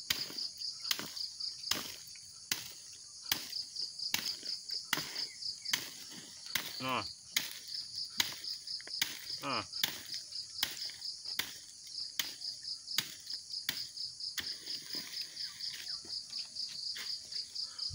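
An overripe oil palm fruit bunch being struck over and over, a blow a little under every second. The bunch is rotten, so light blows shake its fruitlets loose. Insects chirp steadily with a fast pulsing trill behind it.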